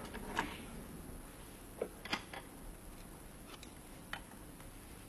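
A few faint, scattered clicks and light taps, like objects being handled at a table, over quiet room tone.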